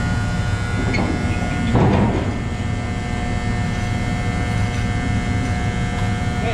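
Steady engine and machinery drone aboard a docked car ferry, with a constant whine over a low rumble, and a brief louder noise about two seconds in.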